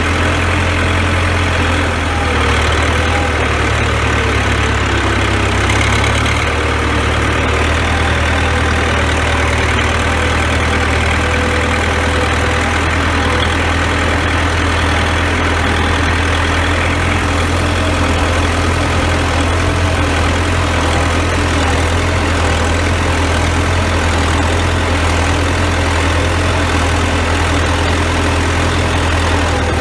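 CASE 580B backhoe's four-cylinder diesel engine running steadily, with a strong low hum and no change in speed.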